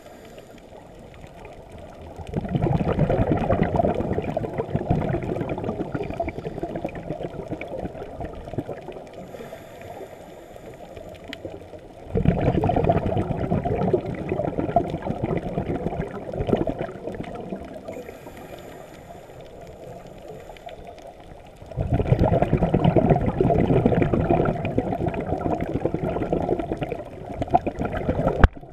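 Scuba diver breathing through a regulator underwater: a faint hiss on each inhale, then a loud rush of bubbles on each exhale. Three breaths come about ten seconds apart.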